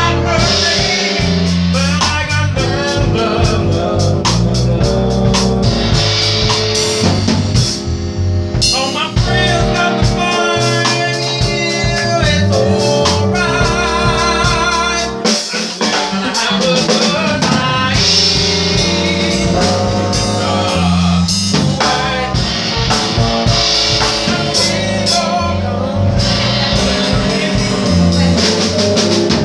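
Live music: a keyboard played with a singing voice over a drum beat.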